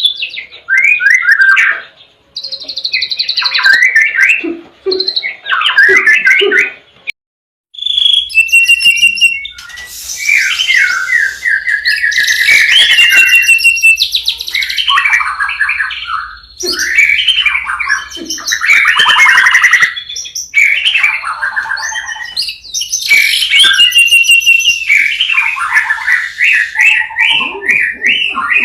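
White-rumped shama (murai batu) singing loudly in varied phrases of clear whistles and rapid trills. The song breaks off briefly about seven seconds in and resumes over a faint low hum.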